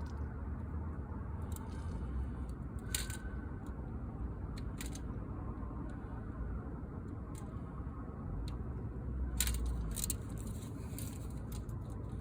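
Scattered light clicks and scrapes of window-screen repair work: screen mesh being stretched and pressed into its frame with a screwdriver, over a steady low rumble.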